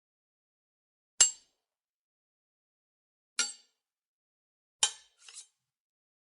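Sword hits: three separate sharp metal-on-metal strikes with a brief high ringing ping, the last followed half a second later by a fainter second clash.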